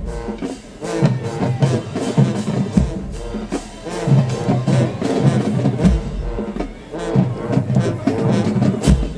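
High school marching band playing: brass over a drumline beating a steady rhythm.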